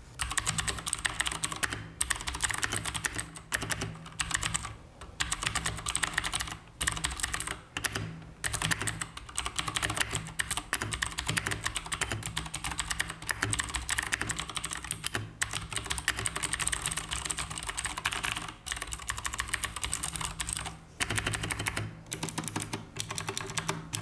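Fast, continuous typing on an AKKO 3108S full-size mechanical keyboard with Cherry MX Blue switches and PBT double-shot keycaps: a dense stream of clicky keystrokes, broken by a few brief pauses.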